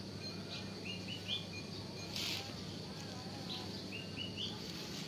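A bird singing the same short phrase twice: a held note followed by three quick notes stepping up in pitch. Under it runs a low steady hum.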